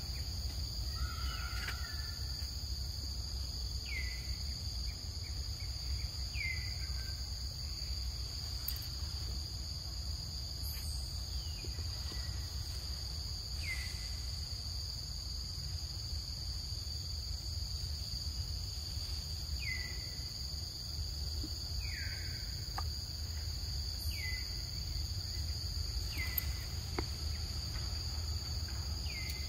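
Forest ambience: insects keep up a steady high-pitched drone while a bird repeats a short call that drops in pitch, every few seconds and at uneven gaps.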